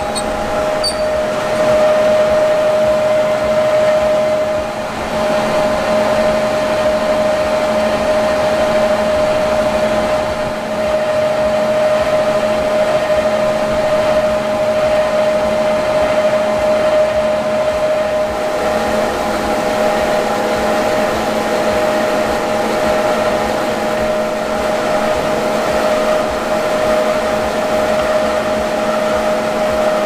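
Grain conveyor belts running while wheat pours off a tipping trailer onto them: a steady mechanical hum with a constant tone, unchanging throughout.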